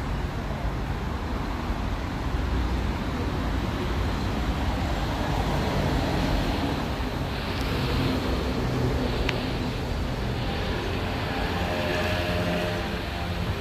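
City street traffic: a steady rumble of passing cars and other vehicles, with a faint steady engine or motor tone coming in over the last few seconds.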